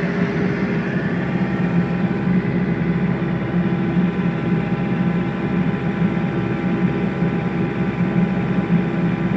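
Mini excavator's diesel engine running steadily, heard close from the operator's seat, with a steady high whine, typical of the hydraulics, settling in about a second in.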